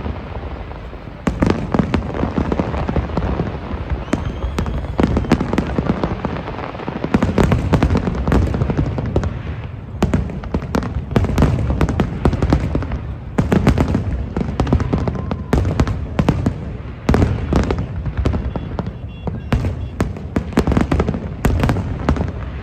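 Fireworks display going off: a continuous rapid barrage of bangs and crackles over a low rumble, with the densest volleys starting about a second in and again around the middle.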